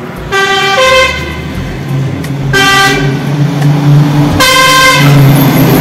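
Truck horn sounding three times as the truck approaches: a longer first blast that changes pitch partway through, then two short ones. Under the horn, the truck's engine grows steadily louder.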